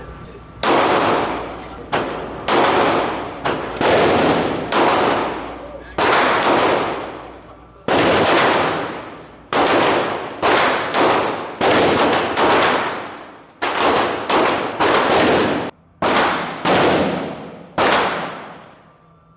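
AK-pattern rifle fired in single shots, about twenty rounds at an uneven pace, each shot ringing out in a long echoing decay of the range.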